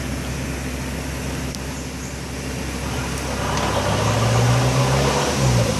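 Off-road 4x4's engine running steadily, then pulling harder and louder for about two seconds from past the middle, easing back near the end.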